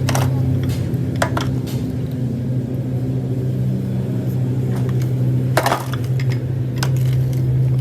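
A steady machine hum with several sharp metallic clinks and knocks, as of tools striking steel parts.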